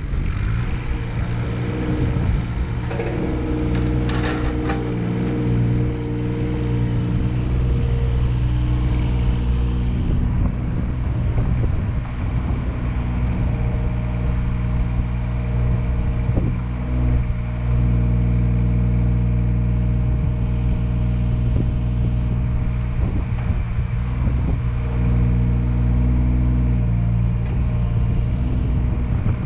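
Komatsu PC26MR-3 mini excavator's diesel engine running steadily, its note shifting a few times. A brief sharp sound comes about four seconds in.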